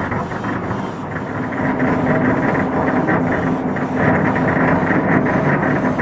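Dense, continuous barrage of fireworks bursts, many crackles and bangs running together into one steady rumble. It gets louder about two seconds in.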